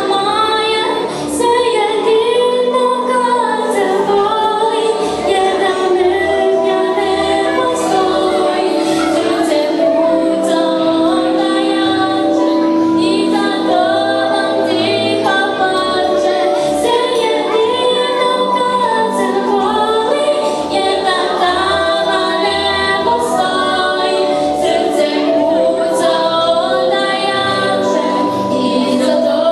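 Children singing a song, young soloists at microphones with a choir behind them.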